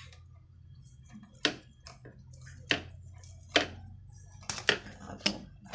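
Electrical tape being pulled off the roll and wrapped around a wire splice: several short crackling rips, starting about a second and a half in, over a low steady hum.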